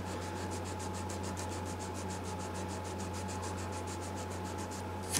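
220-grit adhesive-backed sandpaper on a thin plexiglass block, rubbed back and forth over lacquer filler on a guitar's finish: a quick, even rhythm of short rasping strokes. The filler is being levelled smooth.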